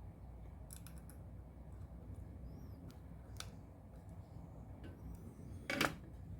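A few sharp clicks and snips of small tools being handled over a low, steady hum; the loudest click comes near the end.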